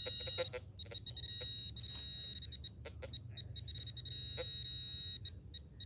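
Fisher F-Pulse pinpointer sounding on a buried metal target: a high electronic tone that comes and goes in short beeps and longer steady holds as the probe is moved in the hole, signalling metal close to its tip. A few sharp clicks from digging in the dirt come through.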